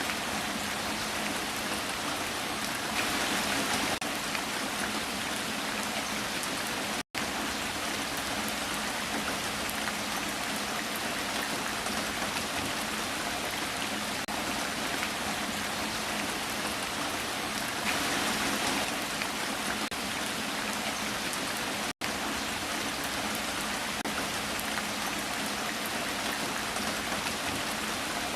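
Heavy rain falling steadily, a dense even hiss of drops on surfaces. It cuts out for an instant twice, and swells a little louder for about a second twice.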